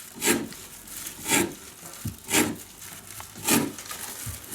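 Pine branch tips being cut finely, with four short crunching cuts about a second apart.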